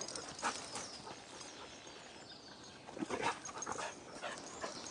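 Dog barking in short play barks, once about half a second in and again in a quick cluster about three seconds in: a dog barking to get other dogs to play with it.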